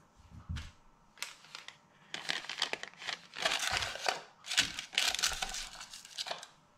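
Baking parchment crinkling and rustling as fingers press it into the bottom of a metal cake pan, in irregular handfuls of rustle that grow busier after the first second or so.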